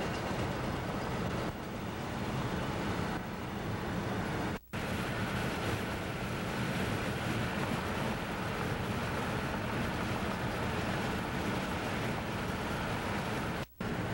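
Steady rushing wind and road noise on a camcorder microphone in a car moving at highway speed. It breaks off twice for an instant, about four and a half seconds in and near the end, where the tape recording stops and restarts.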